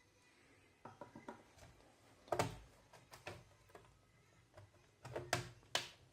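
Sharp clicks and knocks of the laptop's plastic casing and parts being handled: a small cluster about a second in, the loudest knock about two and a half seconds in, and two more near the end.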